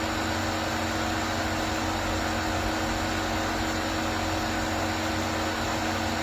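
Steady mechanical hum of an idling vehicle, even and unchanging, with several constant tones.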